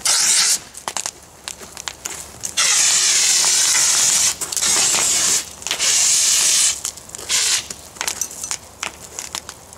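1 kg dry-powder fire extinguisher discharging in loud hissing bursts, squeezed on and off: one at the very start, then a long one and two shorter ones a couple of seconds in, and a brief one about seven seconds in. Scattered crackles and clicks fill the last couple of seconds.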